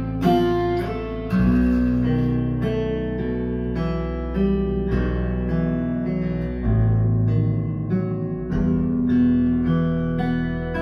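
Acoustic guitar music, plucked notes over a deep bass line, played back through a pair of KEF LS60 Wireless speakers in a listening test.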